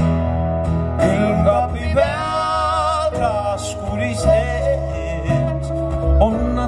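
Live acoustic guitar and Roland electric piano playing a slow song, with a man's voice singing long held notes with vibrato about a second or two in.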